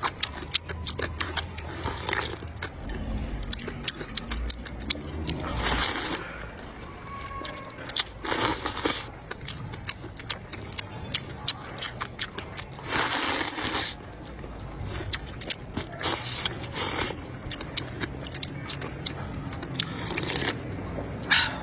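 Close-miked eating sounds: a person chewing and biting into food, with many small clicks and several louder crunching bursts.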